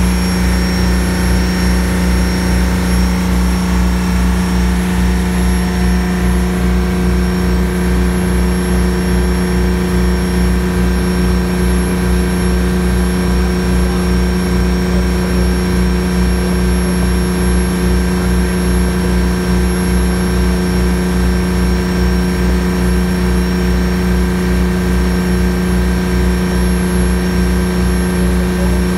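Fishing boat's inboard engine running steadily at cruising speed, a constant low drone with a steady hum, over the rush of water along the hull.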